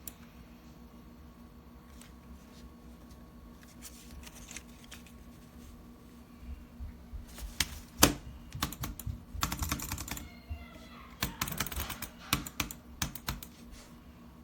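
Rapid plastic clicking of computer buttons in irregular bursts, sparse at first, then dense in the second half, with the loudest click about eight seconds in.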